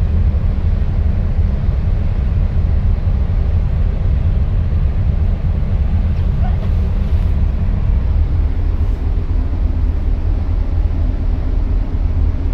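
Ship's engines running with a steady, deep rumble, the low 'boom boom boom' of the motor carrying through the ferry.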